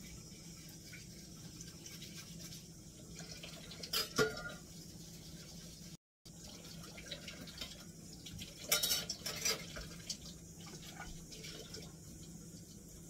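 Water running and splashing in a kitchen sink, with clinks and clatter of cans and dishes being rinsed, loudest about four seconds in and again around nine seconds. A steady low hum sits underneath, and the sound cuts out completely for a moment near the middle.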